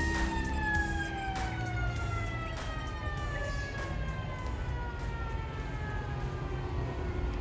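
A siren sounding one long tone that sinks slowly and steadily in pitch, over a low rumble with a few scattered clicks.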